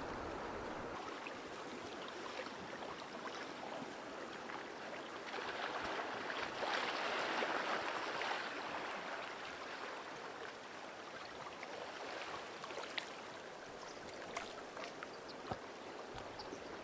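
River water flowing with broken ice floes drifting in the spring ice break-up: a steady rushing that swells louder for a few seconds about a third of the way in, then scattered small sharp knocks as pieces of ice touch.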